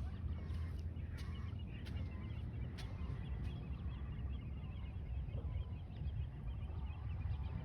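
A brood of ducklings peeping, many short high peeps overlapping almost without pause.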